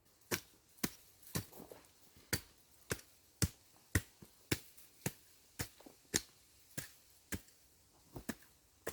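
Steady, rhythmic chopping strikes from a hand-swung axe-type tool, about two sharp blows a second with a couple of quicker double strikes near the end.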